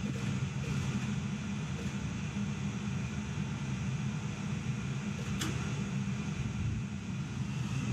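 Gas-fired boiler in its ignition cycle: a steady low hum with a few faint spark clicks while the burner is slow to light. The owner takes the long sparking for a failing ignition module or a dirty flame sensor.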